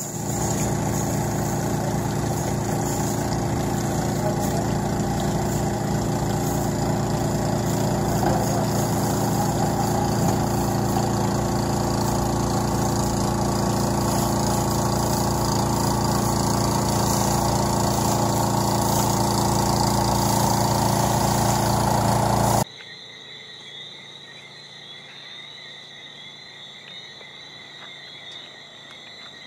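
A small engine running steadily at constant speed under a steady hiss, from the rescue boat whose crew is hosing down a burning boat. About 23 seconds in it cuts off abruptly to a much quieter night background of crickets chirping steadily.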